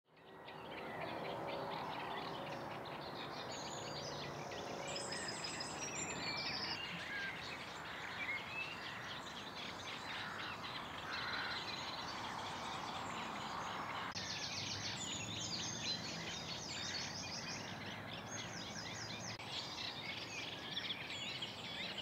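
Eurasian reed warblers singing in a reed bed: fast, chattering runs of repeated high notes, several birds overlapping, over a steady outdoor background hiss. The background shifts suddenly a little past halfway.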